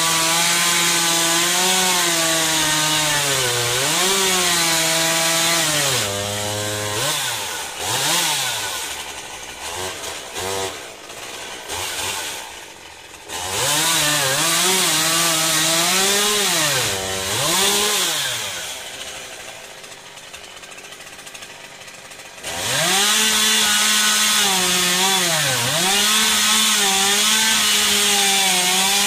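Stihl MS 201 C-M two-stroke chainsaw cutting through a pine log at high revs, its pitch sagging and recovering as the chain loads up in the wood. Twice in the middle the throttle eases off for several seconds and it goes quieter, then the saw runs flat out again for the last part.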